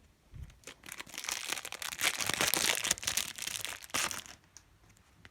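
Foil packet of Match Attax trading cards being torn open and crinkled: a burst of crackling and crumpling that stops about four seconds in.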